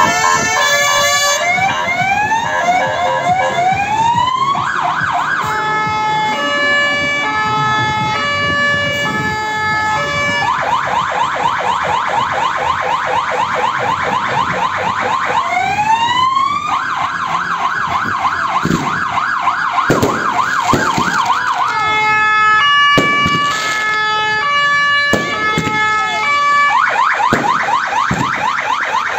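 Fire engine sirens sounding together and cycling through their tones: a slow rising wail, a rapid yelp, and a stepping two-tone hi-lo pattern, with two sirens overlapping at times.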